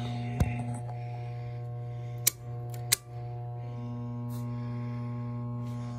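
4-ton air handler's blower motor humming steadily but not starting: the motor is stalled, trying to start, and the capacitor is the suspect. Three sharp clicks come through, one about half a second in and two more around two and three seconds in.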